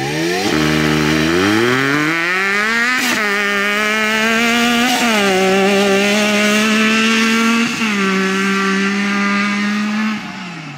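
Supercharged Yamaha YXZ side-by-side's engine accelerating hard under full throttle. The pitch climbs and drops back at upshifts about 3 and 5 seconds in, then holds steady at high revs before the throttle is let off near the end.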